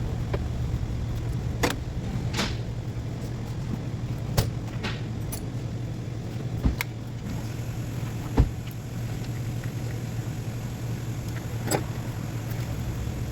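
A steady low hum with about half a dozen short metallic clicks and clinks scattered through it, like hand tools being handled during engine work.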